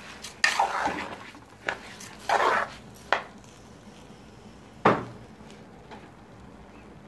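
Metal spoon scraping and stirring dry rice and fried vermicelli around a stainless-steel pan, several short scrapes in the first few seconds. A sharper metal knock comes about five seconds in.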